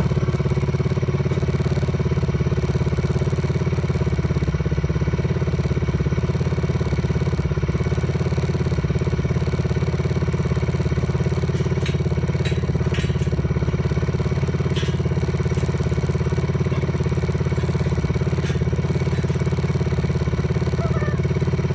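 Polaris off-road vehicle's engine idling steadily at an even, unchanging speed.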